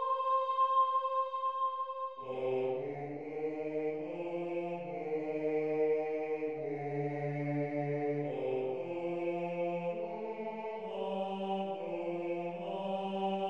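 Choral setting of a Latin poem: a single high soprano voice holds a note, then about two seconds in a lone bass voice enters and sings a slow melodic line in long held notes.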